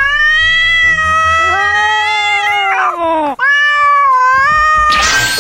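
A cat meowing in long, drawn-out wails: one lasting about three seconds that drops in pitch as it ends, then a second shorter one.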